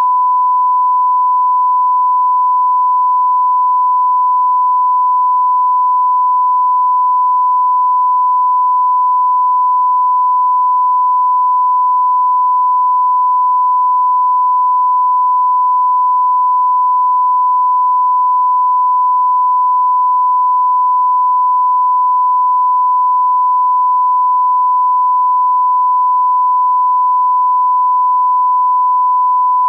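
A steady 1 kHz sine test tone, held at one pitch and level without a break: the reference tone laid at the head of an edited video ahead of the programme.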